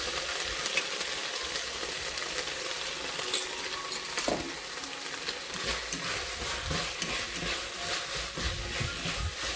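Shredded pork, bell pepper and onion sizzling in a hot wok while being stirred with a spatula, just after cornstarch slurry goes in to thicken the sauce. The spatula clicks and scrapes against the wok now and then, with knocks coming more often in the second half.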